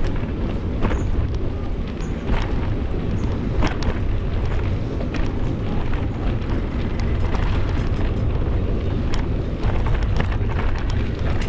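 Wind buffeting the microphone while cycling: a steady low rumble, with scattered clicks and rattles.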